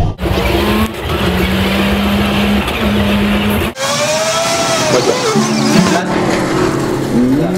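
City bus riding along a street: engine and road noise with steady held tones, cut off abruptly twice. About four seconds in there is a long squeal that dips and rises in pitch.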